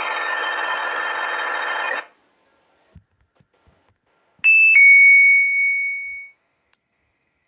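An electronic alarm tone, dense and steady, cuts off about two seconds in. After a short pause comes a two-note electronic chime, doorbell-style: a brief higher note, then a lower one that rings out and fades over about a second and a half.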